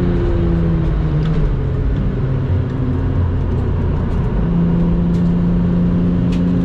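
Lexus IS200's engine running at speed, its note falling over the first second and then rising to a steady higher pitch about two-thirds of the way in, over steady road and wind noise.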